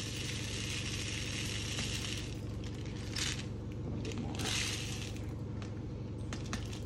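Dried popcorn kernels pouring from a jar into the small metal chamber of a pressure-cannon popcorn popper, a steady rattling stream, with two short louder surges about three and four and a half seconds in.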